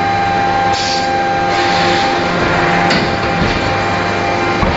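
Steady hum of forge-shop machinery, several fixed pitches over an even hiss, with a faint knock near the end.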